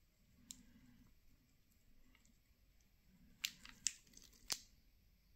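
Clear plastic protective film on a wristwatch crinkling and clicking as the watch is turned over in gloved hands: a faint click about half a second in, then a quick cluster of three sharp crackles a little past halfway.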